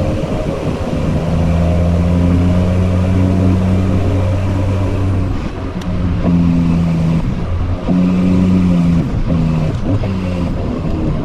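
Diesel engine of heavy earthmoving equipment running steadily, its pitch and load shifting up and down several times as the machine works.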